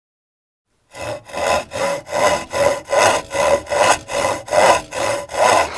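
Hand saw cutting through wood, in steady back-and-forth strokes of about three a second, starting about a second in.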